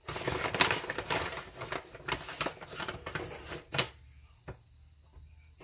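Paper flour bag rustling and a measuring cup scraping and clicking as flour is scooped out and tipped into a glass mixing bowl: a quick run of rustles and clicks for about four seconds, then a single tap.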